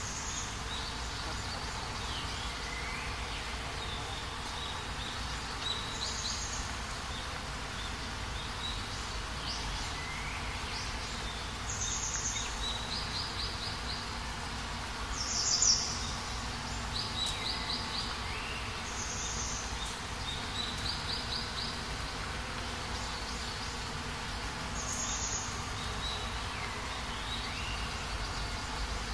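Birds calling: short high chirps, quick trills and a few downward-sliding whistles recur every few seconds, with the loudest chirp about halfway through, over a steady insect buzz.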